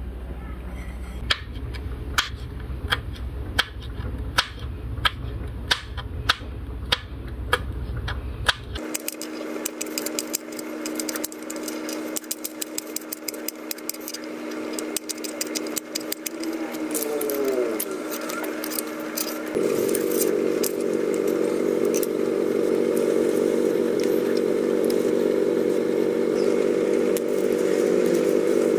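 A knife slicing chili peppers on a plastic cutting board, a steady series of sharp clicks that come quicker after about nine seconds. From about nine seconds in a steady engine-like drone runs underneath, and it gets louder about two-thirds of the way through.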